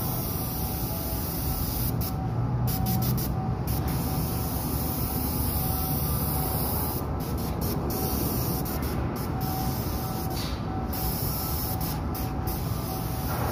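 Steady rush of air from a spray booth's ventilation, with a low hum underneath; the high hiss drops out for a moment several times.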